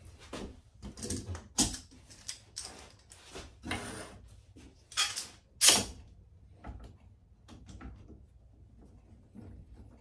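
Small end-grain wooden blocks being shifted and knocked into line on a clamping rack, and a bar clamp being handled: a run of knocks and short scraping slides, the loudest knock just past the middle, then a few light clicks.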